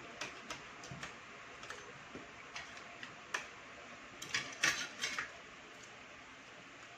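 Eating at the table: scattered light clicks and taps of spoons and forks on plates, with a denser run of clicks about four to five seconds in.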